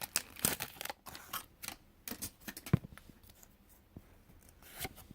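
Pokémon booster pack being opened and handled: light crinkles of the foil wrapper and clicks of the cards, busy in the first second and sparser after, with one sharp click a little before the middle.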